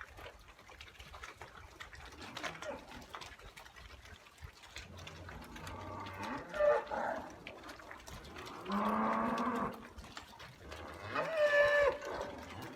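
Dairy cows mooing: a short call about six and a half seconds in, a long low moo from about nine seconds, and another call near the end, over faint shuffling and clatter.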